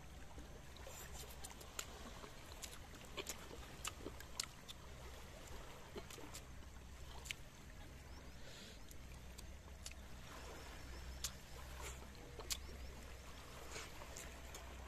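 Quiet eating by hand from a wok and metal plates: scattered small sharp clicks and smacks. Under them runs a faint, steady low wash of the sea.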